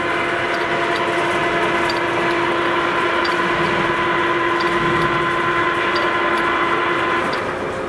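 American engine lathe running under power, its geared headstock giving a steady whine with a faint regular tick about once a second. Near the end the whine drops away and the machine gets quieter.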